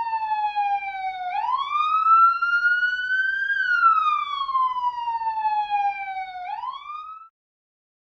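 Ambulance siren wailing, its pitch sliding slowly down and back up in sweeps a few seconds long, then cutting off suddenly about seven seconds in.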